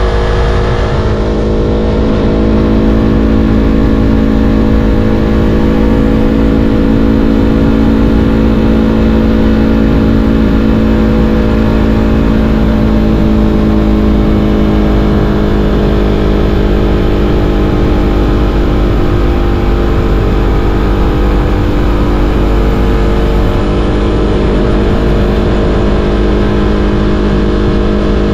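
Yamaha R3's parallel-twin engine running at a steady cruise, its pitch rising slightly in the first couple of seconds and then holding, with heavy wind rumble on the microphone.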